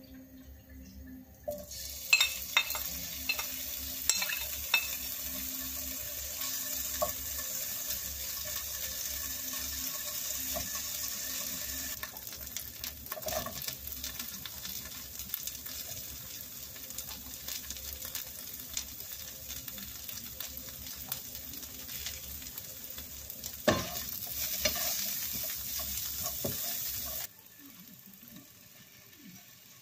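Food frying in hot oil in a frying pan, a steady sizzle with scattered pops and a few sharp clicks and knocks. The sizzle drops off abruptly near the end.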